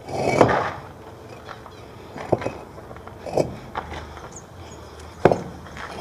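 Interlocking bricks being set one on top of another. A short scrape at the start, then several separate knocks of brick on brick, the sharpest about five seconds in.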